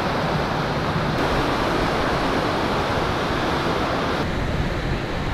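Steady rushing of wind and churned water alongside a moving car ferry, heard from its open upper deck. The hiss shifts slightly about a second in and again near the end.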